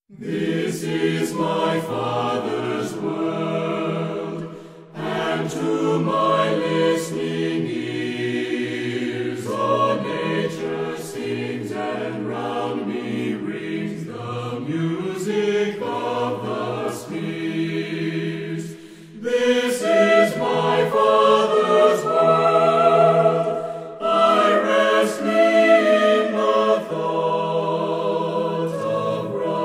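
A choir singing several voice parts in harmony, in long sustained phrases with brief pauses between them.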